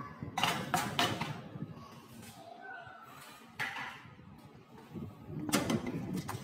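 Metal muffin pans scraping and clattering against the wire racks of an oven as they are slid in. There are three sharp clatters near the start, another at about three and a half seconds, and a quick run of them near the end.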